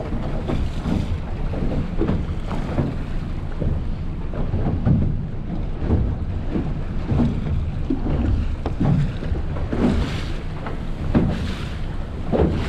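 Wind buffeting the microphone over the steady low rumble of a Stabicraft 2050 Supercab aluminium boat cruising slowly through chop, with irregular splashes of water against the hull.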